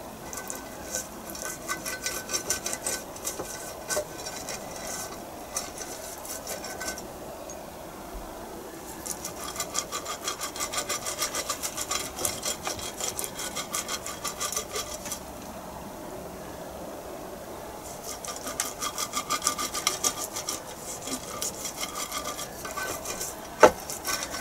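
Pastry brush rubbing quickly back and forth over the grids of a non-stick waffle-maker plate, spreading a light coat of oil so the batter won't stick. The strokes come in three spells with short pauses between them, and there is one sharp knock near the end.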